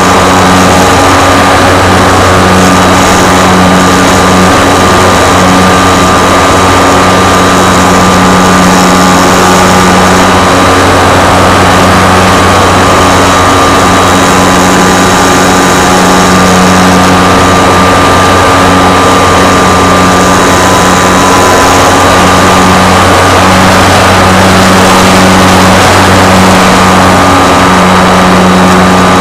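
Radio-controlled model aircraft's motor and propeller running steadily in flight, loud and close, heard from the camera mounted on the plane.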